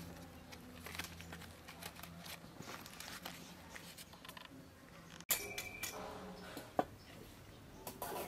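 Banana leaves rustling and crinkling as hands tie a leaf-wrapped parcel shut with dried banana-stem fibre, a run of soft small crackles. About five seconds in the sound changes abruptly to quieter background with one sharp click.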